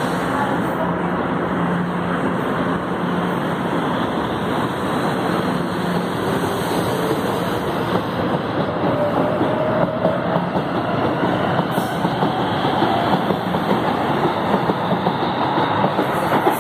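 Fleet G metro train approaching along the track: over a steady rush of noise, a slowly rising motor whine and repeated wheel clicks on the rails grow louder in the second half.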